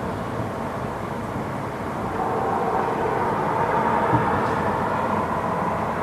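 Continuous rumble and crackle of a fireworks salute, swelling louder in the middle.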